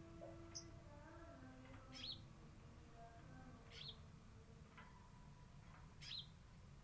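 Female sogon bird calling, the lure call for males: three short, sharp sweeping calls about two seconds apart, with a small high chirp near the start, over faint background noise.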